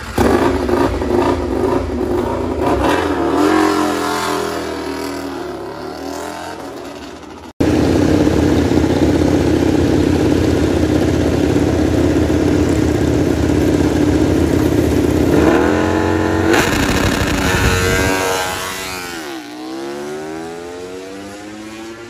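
Honda RC213V MotoGP bike's V4 engine catching and being revved up and down. After a cut, it is held at high steady revs for a practice start, then launches about sixteen seconds in, revs climbing through gear changes before fading as the bike pulls away.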